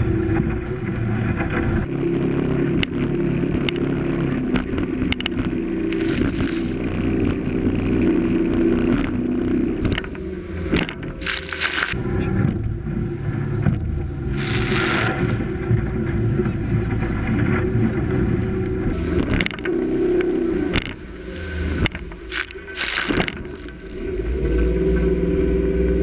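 Mercury outboard motor running steadily at speed on a rigid inflatable boat pounding through rough sea, with the hull slapping on the waves, several loud rushes of spray, and wind buffeting the microphone.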